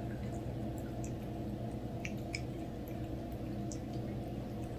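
Cat licking a lickable paste treat from a squeeze tube: faint, scattered wet clicks over a steady low hum.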